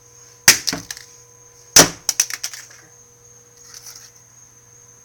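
Two hard hammer blows on a plastic flip phone, about a second and a half apart, the second followed by a short clatter of smaller knocks. The phone's plastic body only dents and bends instead of cracking.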